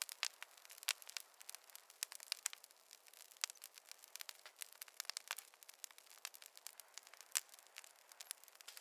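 Wood fire in a fireplace crackling: irregular sharp pops and snaps, several a second, with the occasional louder snap and no low roar of flame.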